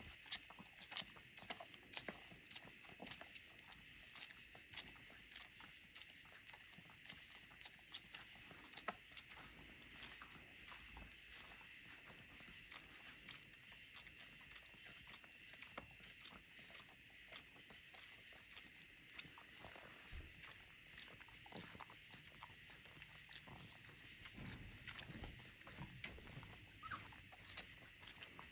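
Steady high-pitched chorus of night insects that drops out briefly now and then, with scattered faint clicks.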